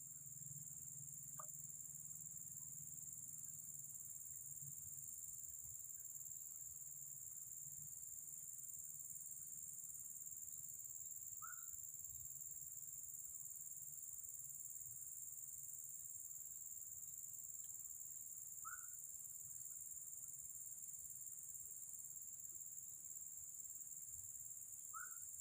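A steady, high-pitched chorus of insects such as crickets shrilling without a break, with a few short faint chirps now and then.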